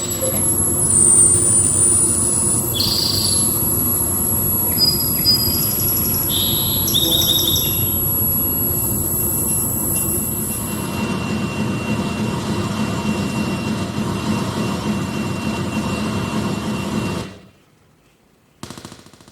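Experimental electronic noise performance: a dense wash of hiss and rumble under a steady high whistle that shifts in pitch, with short electronic bleeps between about three and eight seconds in. It cuts off abruptly about seventeen seconds in, then a short, quieter burst of noise follows near the end.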